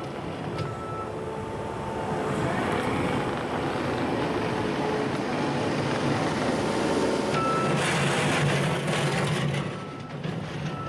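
New Holland C232 compact track loader (skid steer) running under load, its diesel engine working harder through the middle. Its backup alarm beeps about once a second at the start, stops, then beeps again near the end as it reverses. A burst of hissing noise comes shortly before the end.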